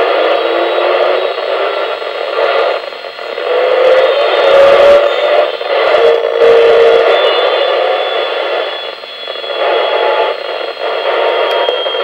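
Amateur radio receiver playing the ARISSat-1 satellite's FM downlink: a muffled, hissy SSTV slow-scan television signal that swells and fades, with a faint tone rising in pitch partway through. The operator takes the fading for the satellite tumbling.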